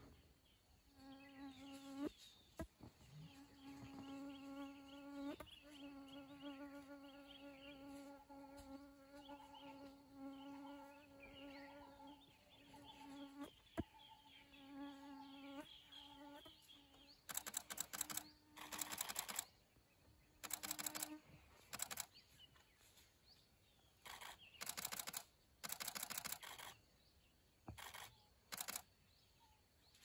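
A flying insect buzzing as a steady hum with a few short breaks. About halfway through it gives way to repeated short bursts of rapid camera shutter clicks, a camera firing in continuous mode.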